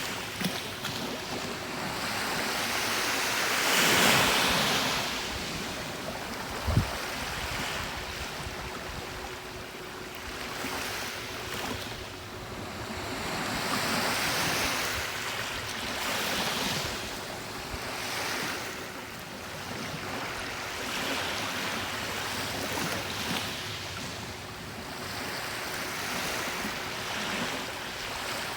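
Calm ocean waves breaking and washing up on the shore, swelling and fading every few seconds, the biggest swell about four seconds in. One brief low thump about seven seconds in.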